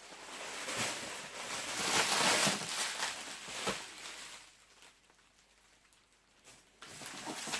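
Rustling and crinkling of packaging being handled by hand, with small ticks and taps, dying away after about four and a half seconds; a few light clicks near the end.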